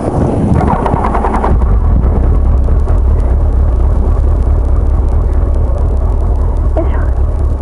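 Motorcycle engine running at low speed, a steady low rumble.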